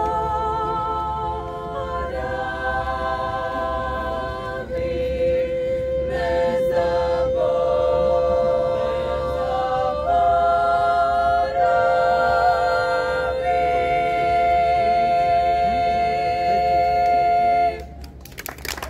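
Women's vocal ensemble singing a cappella in close harmony, holding long sustained chords. Near the end the final chord cuts off and applause begins.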